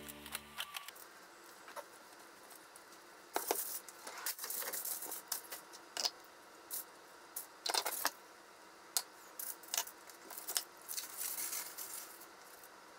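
Aluminium foil crinkling in short bursts, with scattered small clicks and taps of food and containers being handled. A little background music fades out in the first second.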